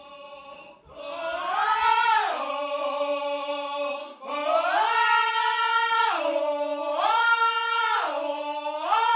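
Singing voices holding long notes. The pitch steps up and down between two notes in a slow, repeating pattern, in two long phrases with a short break about four seconds in.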